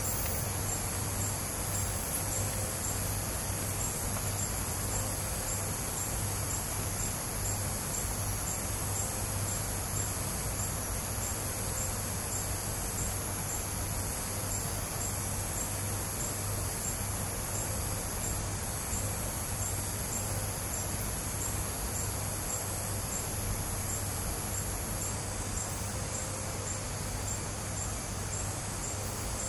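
Night chorus of crickets and other insects: a steady high shrill trill with one call pulsing regularly above it, over a low steady hum.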